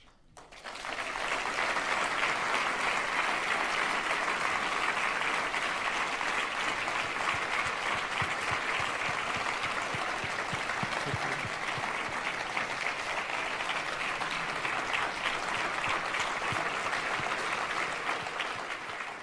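Audience applauding: a full round of clapping that swells up about half a second in and holds steady.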